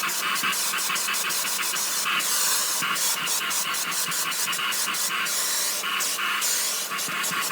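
Vacuum cleaner running with a steady hiss that flutters in quick, irregular dips.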